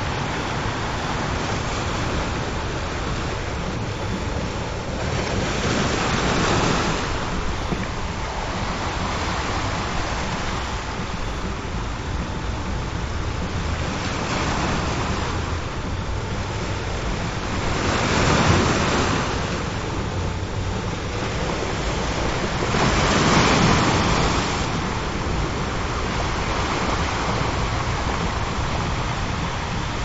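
Ocean surf: a steady wash of waves with three louder waves swelling and breaking, about six, eighteen and twenty-three seconds in.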